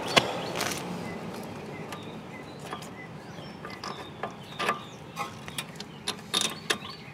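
Small metal clicks and taps from hands working the carburetor and its throttle rod and linkage on a small go-kart engine while the carburetor is being taken off: one sharp click just after the start, then scattered light clicks from about four seconds in. A steady rushing noise fades away over the first second.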